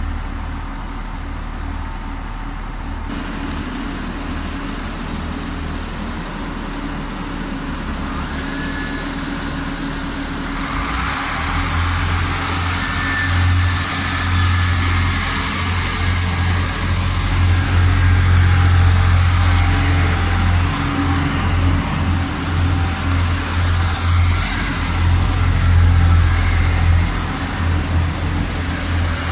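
Iarnród Éireann 29000 Class diesel multiple unit: a quieter engine hum at first. About ten seconds in, the underfloor diesel engines power up with a deep, steady drone and hiss that grows louder as the train pulls out of the station.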